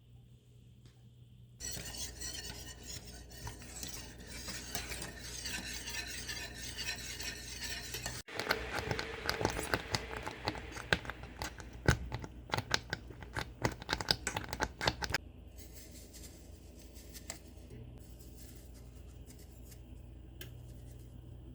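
A metal utensil stirring a milk pudding mixture in a pot, scraping softly at first, then clicking rapidly against the pan for several seconds before it stops.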